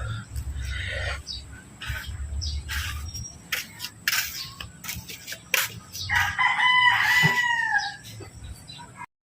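A rooster crows once, a long call of about two seconds starting about six seconds in, over scattered knocks and clicks.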